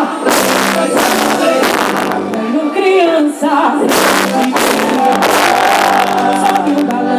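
Festa junina quadrilha music with a singing voice over held instrument tones and percussion hits.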